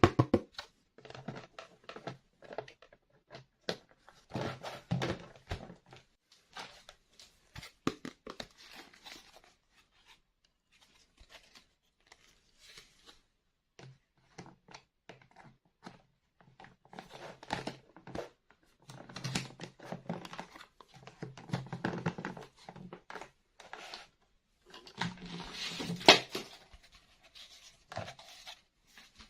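Hands unboxing toys: plastic packaging rustling and tearing, with taps and clicks of small plastic toy pieces in irregular bursts. One sharp click comes near the end.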